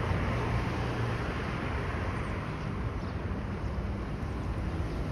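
Steady outdoor city background noise: a low traffic hum with some wind on the microphone.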